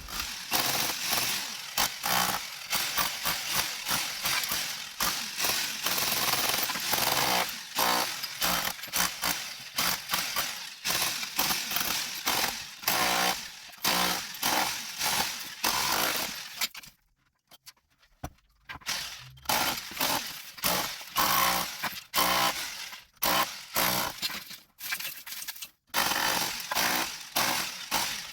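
Power tool hammering into a masonry wall, chiselling out a channel, with rapid rough impacts and short stops, the longest about two thirds of the way through.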